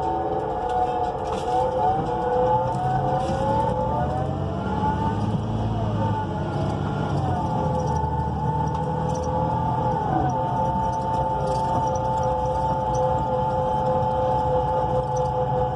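Drivetrain of a NABI 42 BRT transit bus, with a Cummins Westport L9N natural-gas engine and an Allison B400R automatic transmission, running under a low engine rumble, heard from inside the bus. Its whine shifts and glides in pitch, drops sharply about ten seconds in, then holds steady.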